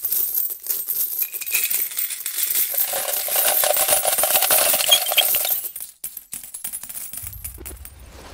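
A stream of coins pouring and clinking together, a dense cascade of metallic clinks that thins out about six seconds in. Sparser clinks and a low rumble follow near the end.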